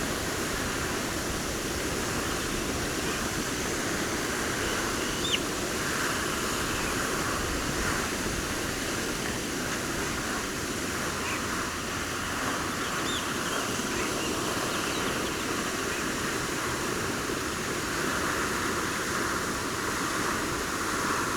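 Steady rushing hiss like spraying water, with a few faint, brief bird chirps.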